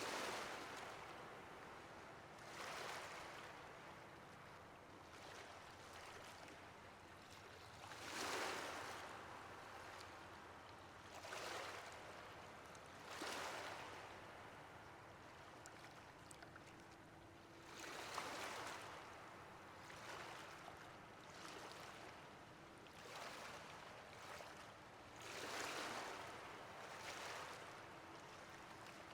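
Ocean surf washing onto a shore: a steady hiss of water that swells and fades again every few seconds as each wave breaks.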